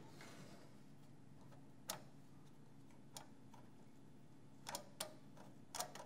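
Light clicks and taps of metal parts being handled on a record player's chassis and motor bracket: a single click about two seconds in, then several close together near the end, over a faint low hum.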